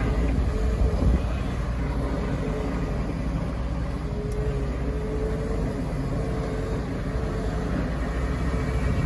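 Kawasaki KCM 11-tonne snow dozer, a wheel loader with a snowplow blade, working its diesel engine under load as the blade scrapes compacted snow off the road surface. A steady deep rumble throughout, with a thin whine that comes and goes.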